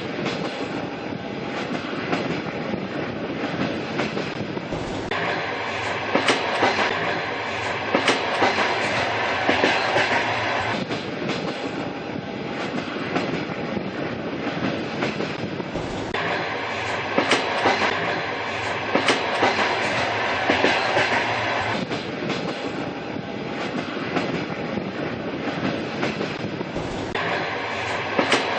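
Train running on jointed track: a steady rolling rumble with clusters of sharp wheel clacks over the rail joints. The same stretch of sound repeats about every eleven seconds.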